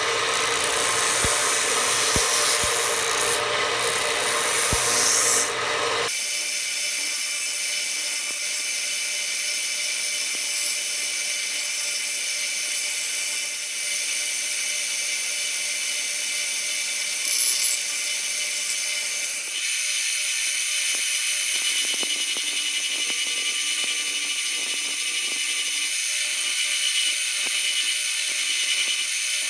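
A power tool scrubbing steel vise parts (lock nut, screw and handles) clean: a steady hiss with no distinct tone, changing abruptly at about 6 seconds and again at about 19 seconds.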